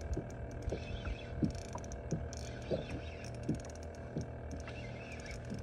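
Light, irregular clicks and a few soft knocks from a spinning rod and reel being handled on a boat, over a steady low hum.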